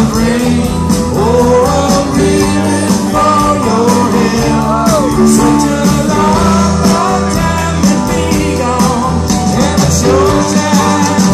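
Live rock band playing: electric guitars, bass and drums together, with lead lines that bend and glide in pitch over a steady low bass.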